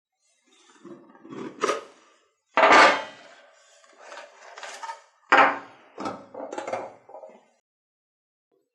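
A run of knocks and clinks from hard objects being handled and set down, like metal tools and the hammer head in a workshop. The two loudest knocks come about two and a half and five and a half seconds in.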